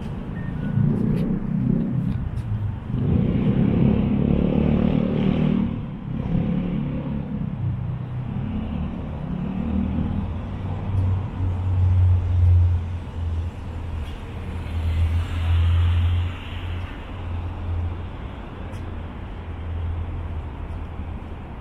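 City street traffic: cars passing close by, each swelling and fading, with a steady low engine hum through the second half.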